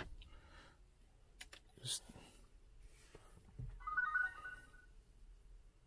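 A short electronic chime of several quick beeps about four seconds in. Before it come a few soft clicks and a brief rustle.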